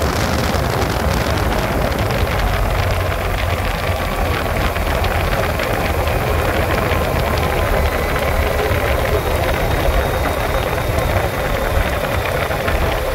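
Motorcycle riding at road speed: the engine runs steadily under a continuous rush of wind noise.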